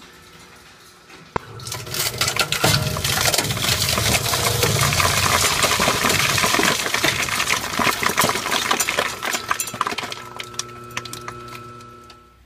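KS-13120HDR hard-drive shredder running, then from about two seconds in its rotary cutters crunch through a hard drive, a loud, dense clinking crackle of shattering glass platters and metal. The crackle thins out near the end, leaving the shredder motor running on.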